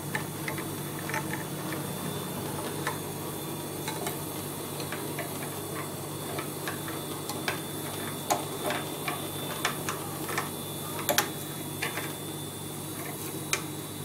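A metal spoon clinking and ticking irregularly against a small glass bowl while stirring sodium hydroxide into water to dissolve it, over a steady low hum.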